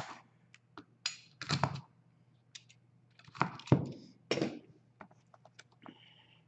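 Hands working at a desk: scattered light clicks and taps with a few short rustles.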